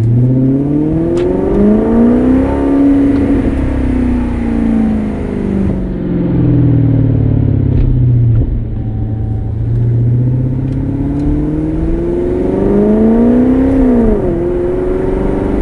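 Maserati GranTurismo's Ferrari-built V8 accelerating and easing off: its pitch climbs, falls away and holds, then climbs again and drops sharply near the end. The turbo whistles clamped in the exhaust tips add no audible whistle over the exhaust.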